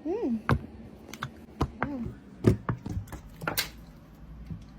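Irregular light clicks and taps, a few each second at first and sparser later, the sharpest about two and a half seconds in, with a short rising-and-falling squeak or murmur at the start.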